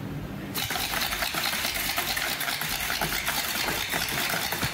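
Full-auto airsoft shotgun firing, a fast steady rattle of shots that starts about half a second in.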